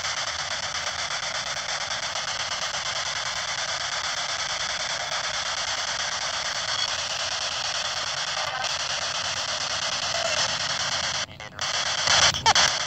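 Handheld radio used as a spirit box, sweeping through stations: a steady hiss of static, finely chopped by the sweep. Near the end it cuts out briefly, then a short louder fragment comes through that is taken as the word "yes", an answer to the question just asked.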